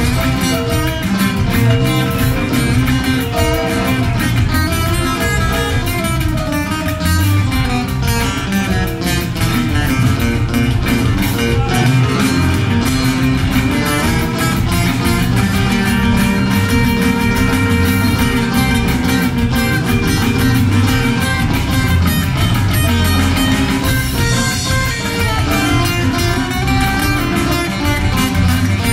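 Live band music led by two acoustic guitars strummed and picked in a steady rhythm.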